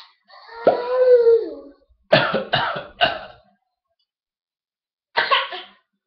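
A high, drawn-out baby's vocal sound that rises and falls, then three quick coughs in a row and one more cough near the end.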